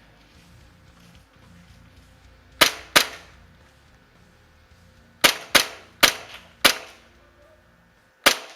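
Airsoft gun firing single shots: sharp cracks, two about 2.5 seconds in, four more at roughly half-second intervals a couple of seconds later, and one near the end.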